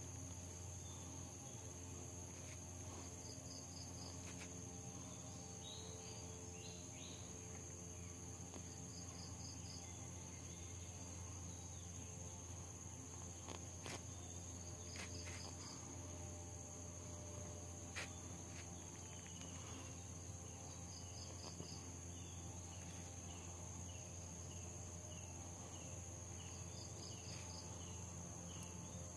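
Steady high-pitched drone of insects, with runs of short repeated chirps over a low steady hum. A few faint clicks stand out about halfway through.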